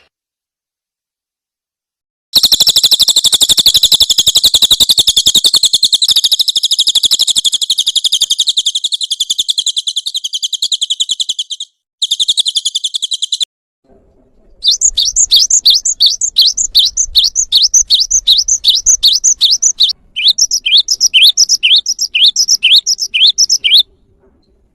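Bird song: after a short silence, a long, fast, high-pitched trill of rapidly repeated notes, then a run of sharp down-slurred chirps repeated about three times a second.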